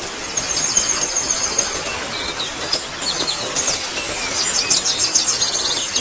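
Steady rain hiss with birds chirping over it: a high, fast trill about half a second in, and a longer run of rapid chirps from about three and a half seconds.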